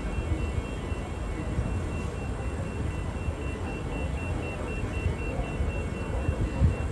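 Low rumble of a Melbourne suburban train, with a thin high electronic tone pulsing evenly about four times a second over it.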